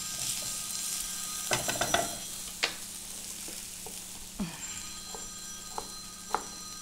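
Diced vegetables sautéing in bacon fat in a pan, a steady sizzle. Over it come a few sharp clicks and knocks of kitchen utensils, a quick cluster about a second and a half in, then single ones.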